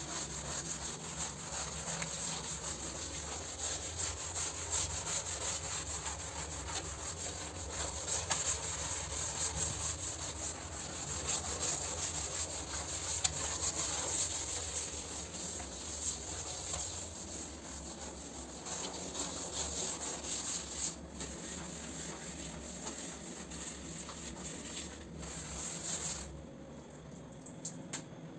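Stiff brush scrubbing a wet, soapy bathroom floor, a continuous back-and-forth scraping that stops shortly before the end.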